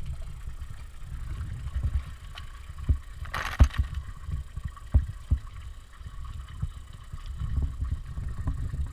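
A Welsh corgi falling into a shallow pool: a short splash about three seconds in, followed by several knocks as he scrambles against the stone edge. A low rumble on the microphone runs throughout.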